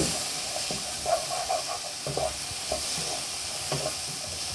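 Chopped onions sizzling in hot oil in a non-stick frying pan, with a wooden spatula stirring and scraping through them in irregular strokes as they are sautéed soft.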